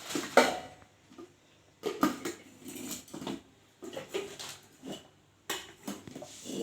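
Irregular knocks, clatter and rustling of the plastic jars, lids and packaging of a new mixer grinder being handled, with short quiet gaps between.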